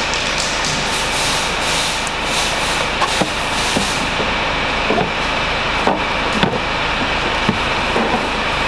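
A plastic car tail-light assembly is handled and pushed into its mounting, giving a handful of light clicks and knocks from about three seconds in. Under it runs a loud, steady workshop noise with a constant high whine and a low hum.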